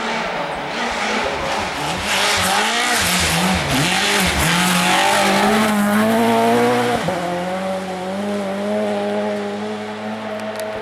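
Rally car at speed on a gravel stage, its engine revving up and down through gear changes, with a loud rush of tyre and gravel noise in the middle. After an abrupt cut about seven seconds in, another rally car's engine holds a steady note as it approaches.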